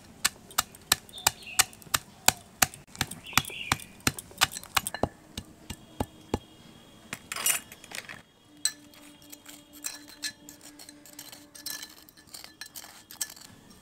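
Rock sugar (misri) crystals pounded in a metal mortar and pestle (hamal dista). Sharp strikes come about three a second, then give way about halfway through to lighter, quicker taps with a faint ringing note.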